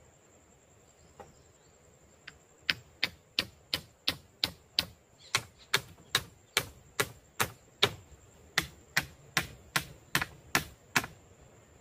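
A run of sharp, evenly spaced chopping strikes on wood, about three a second, starting a few seconds in, over a thin steady high-pitched tone.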